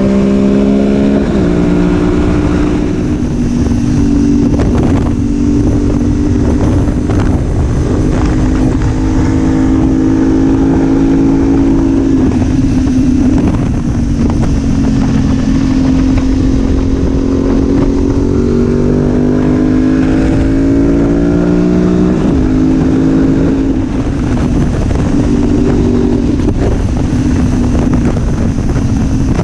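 2019 BMW F850GS Adventure's parallel-twin engine running under way, its pitch rising and dropping as the rider accelerates and shifts gears, with a long climb in revs about two-thirds of the way through followed by a sudden drop, over a steady rush of wind and road noise.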